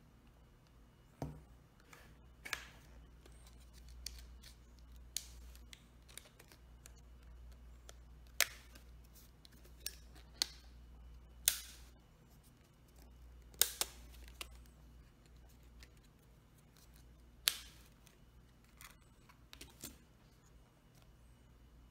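Plastic clips of the LG Stylo 3's rear frame snapping loose as it is pried up around its edge: about a dozen sharp clicks at irregular intervals, over a faint steady hum.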